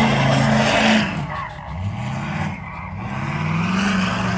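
Lifted diesel pickup truck revving hard as it spins its tyres in loose sand, with the hiss of flung sand. The engine eases off about a second in, then revs back up with a rising pitch.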